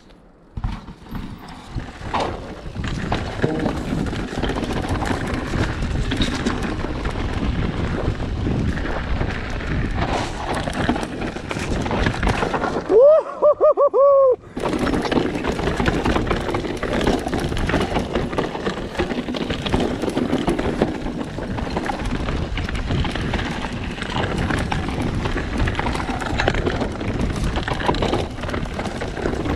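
Mountain bike ridden fast down a rocky trail: a steady clatter of tyres, chain and frame over stones, with wind rushing on a bike- or helmet-mounted action-camera microphone. About halfway through, the rattle cuts out briefly and a short, loud, wavering call is heard.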